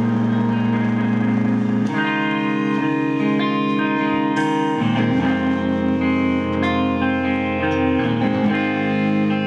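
Live band music led by layered electric guitar through effects: sustained, overlapping notes that change chord about two, five and eight seconds in.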